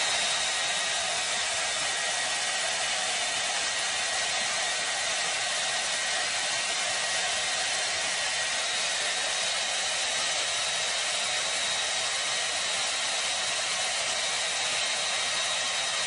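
Hand-held hair dryer running steadily: a constant blowing rush with a thin, steady high whine.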